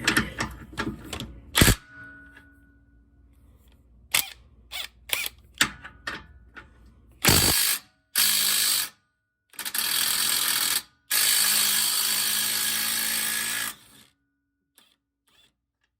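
Electric impact wrench hammering in four bursts, the last and longest lasting nearly three seconds, as it breaks loose and spins off a car's lower rear shock-absorber bolt. Before the bursts there are scattered clicks and knocks as the tool and socket are fitted to the bolt.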